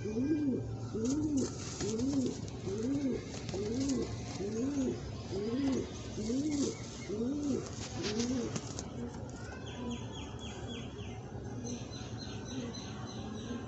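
Racing pigeon cooing: a regular series of rising-and-falling coos, about one a second, that grow weaker after about nine seconds. Near the end come two quick runs of high chirps.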